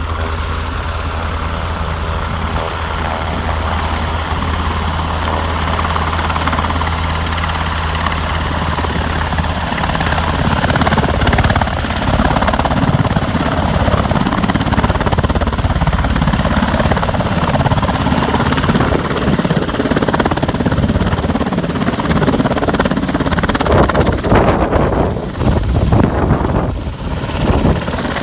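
Sikorsky UH-60 Black Hawk helicopter's rotors and twin turbine engines, landing. The sound starts steady with a low hum, grows louder and rougher about ten seconds in as the helicopter comes closer, and briefly drops twice near the end.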